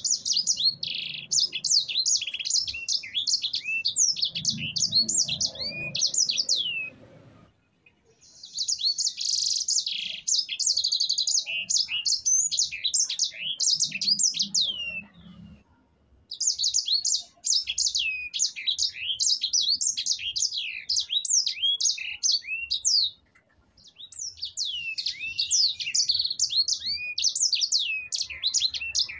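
Yellow-fronted canary (sanger) singing long, rolling phrases of rapid high chirps and down-slurred whistled notes. There are four song bursts, each several seconds long, with brief pauses between them.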